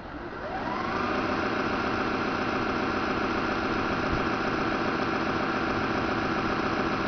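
A model tugboat's motor spins up with a rising whine over the first second, then runs steadily at a constant pitch.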